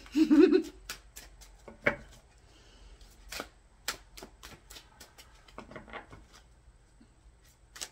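A deck of tarot cards being shuffled and handled by hand: a run of quick, sharp card flicks and taps, irregular in spacing, after a short voice sound at the very start.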